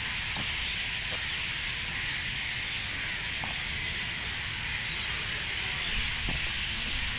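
Outdoor evening ambience: a steady, high-pitched chorus with a low rumble of wind on the microphone and a few faint chirps.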